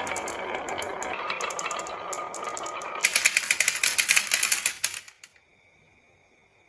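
Toy marble run: pieces rolling and rattling down the track. About three seconds in this turns into a loud burst of rapid clicking and clattering, which stops abruptly about five seconds in.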